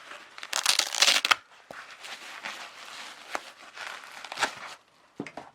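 Packaging crinkling and rustling as a camcorder is lifted out of its box and unwrapped, loudest in a burst about a second in, then scattered crackles and light clicks.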